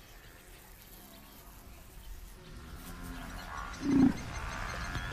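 A large wild animal gives one short, loud, low growl or grunt about four seconds in, over soft music that swells after a quiet start.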